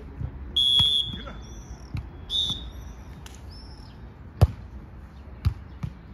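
A beach volleyball being struck: a sharp smack of hands on the ball about four and a half seconds in, the loudest sound, and a second hit about a second later. Before them come two short, shrill, whistle-like tones.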